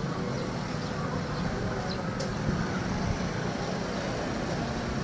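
Steady background noise of street traffic, an even hum with no distinct events.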